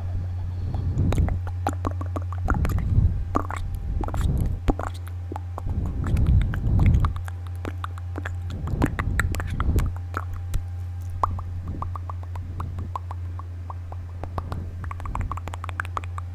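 Close-miked ASMR mouth sounds made quickly: a dense run of wet tongue and lip clicks, thicker in several short clusters, over a steady low electrical hum.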